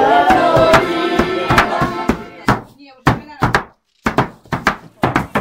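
Music and voices fading out over the first two seconds, then a run of sharp knocks at uneven intervals, with a brief pause about three and a half seconds in.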